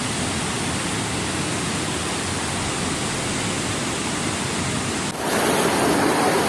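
Flooded river rushing over rocks, a steady rush of water. About five seconds in it changes to a louder rush of muddy floodwater.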